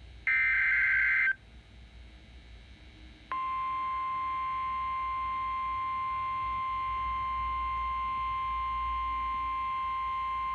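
Emergency Alert System SAME data burst, a warbling two-tone digital screech about a second long, followed about three seconds in by the steady 1050 Hz NOAA Weather Radio warning alarm tone that holds unbroken. The alarm tone signals that a warning message is about to be read.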